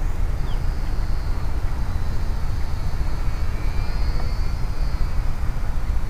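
Steady low rumble of wind on the microphone, over which the small electric motor and propeller of a Parkzone ultra-micro P-51 Mustang RC plane whine faintly and high-pitched as it flies overhead.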